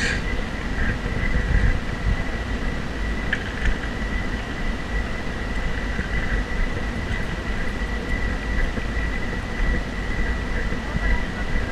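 Wind buffeting the action camera's microphone, a loud uneven low rumble, with a thin steady high whine running underneath.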